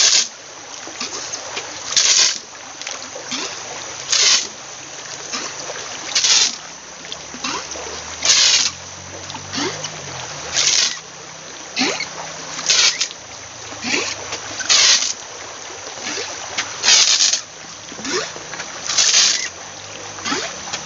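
Bamboo squirt gun repeatedly refilled from a stream and fired. There is a hissing spurt of water about every two seconds, about ten in all, with short gurgling sounds between as it refills, over the steady rush of the stream.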